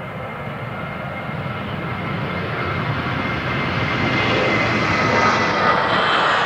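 Jet airliner's engines growing steadily louder as the aircraft comes closer, a high whine running above a rushing roar.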